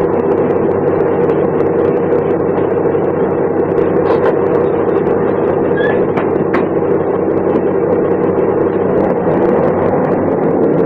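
1988 MAN SL 202 city bus's diesel engine running steadily at an even engine speed, with a few faint clicks.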